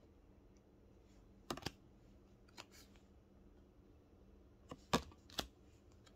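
Oracle cards being handled: a few sharp clicks and snaps of card stock as the cards are moved through the deck. There are two near the start, fainter ones after that, and the loudest cluster about five seconds in, over a faint steady hum.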